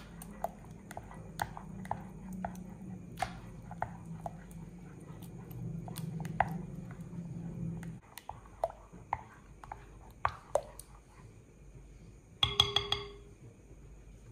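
Wooden spoon stirring a thick avocado and milk mixture in a glass bowl, knocking lightly against the glass about twice a second. Near the end comes a louder clatter of spoon on glass with a brief ring.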